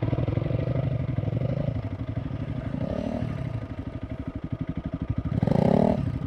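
Motorcycle engine running at low speed with an even firing pulse, revved briefly a little before the end.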